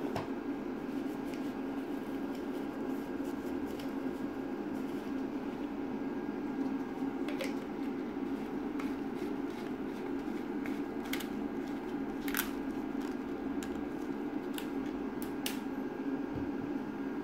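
Steady low hum, with a few scattered light clicks and taps from gloved hands handling a plastic resin bottle.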